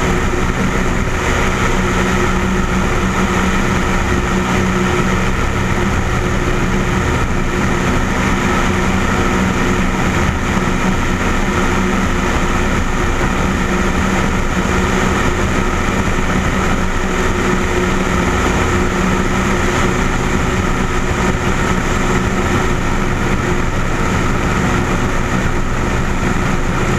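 Single-engine light aircraft's piston engine and propeller running at a steady cruise drone, heard from under the wing in the airflow, with no change in pitch or level.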